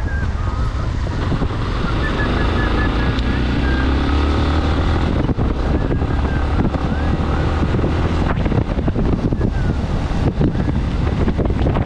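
Motorcycle riding on a wet road: steady wind noise on the GoPro's microphone over the engine running and tyres hissing on the wet asphalt. The engine's pitch rises and falls slightly a few seconds in.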